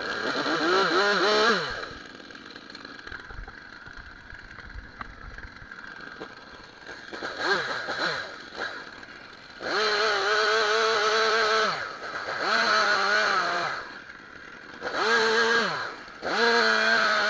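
Stihl chainsaw revved up to full throttle in repeated bursts of one to two seconds, dropping back to idle between them.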